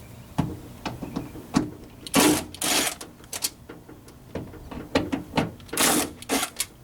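Hand tools and parts being worked inside a car door: a run of clicks and knocks with short rattling, scraping bursts, the loudest about two seconds in and again near the end.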